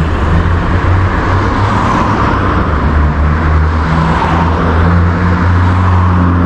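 Cars passing close by on a city street at night, with a steady low engine hum underneath.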